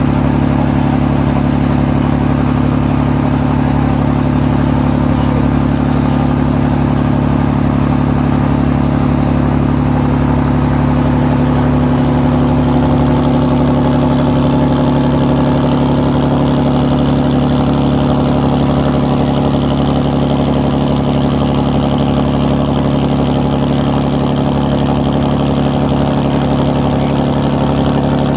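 Ferry's engine running steadily, a loud low drone that holds one pitch throughout.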